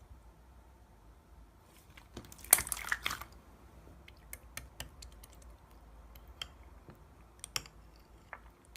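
Slime being squeezed and poked, making small sticky clicks and pops: a dense run of them about two and a half seconds in, then scattered single clicks.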